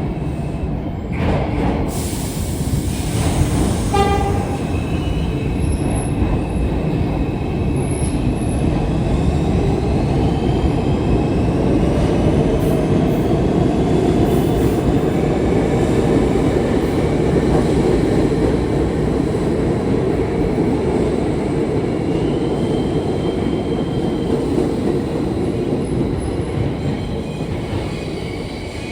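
New York City subway train running, a steady loud rumble of wheels and motors with a faint rising and falling electric whine above it. A short tone sounds about four seconds in.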